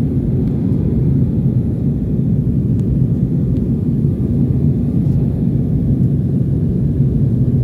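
Jet airliner cabin noise: the steady low rumble of the engines and airflow heard from a window seat as the plane descends on its approach to land.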